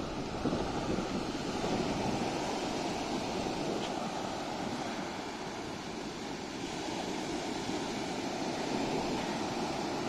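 Sea surf washing steadily onto a beach, with wind on the microphone.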